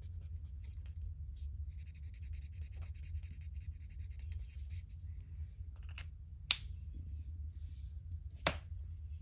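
Colouring strokes on paper: a quick, rapid scratchy rubbing that goes on for about five seconds, then stops, followed by three sharp clicks, the loudest about six and a half seconds in. A steady low hum runs underneath.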